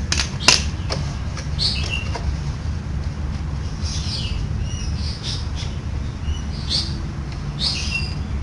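Small birds chirping now and then in short falling notes over a steady low hum, with a sharp metallic click about half a second in.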